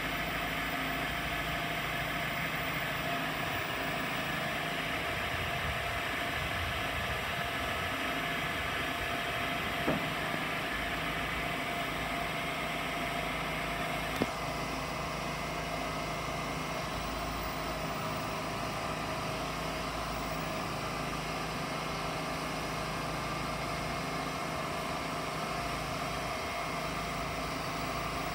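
Sandvik DT820 drilling jumbo's diesel engine running steadily while its hydraulic booms are moved. Two sharp clicks about ten seconds in and again about four seconds later.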